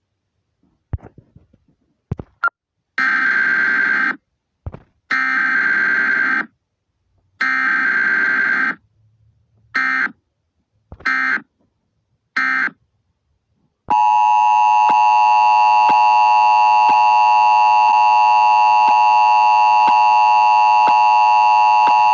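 Emergency Alert System broadcast tones. After a few clicks come three bursts of digital header data, each just over a second long, then three much shorter bursts. From about fourteen seconds in, the two-tone attention signal holds steady.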